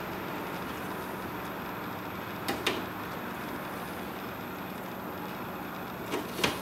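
Steady low background hum with a few light plastic clicks and knocks, two about two and a half seconds in and two more near the end, as a coolant siphon hose is worked in a snowmobile's engine bay.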